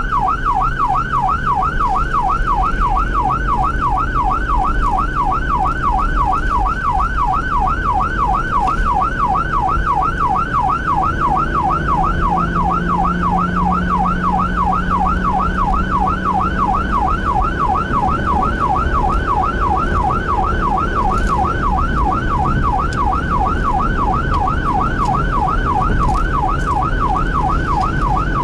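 Fire engine's electronic siren in yelp mode, sweeping up and down fast, about three times a second, over a steady low engine and road rumble.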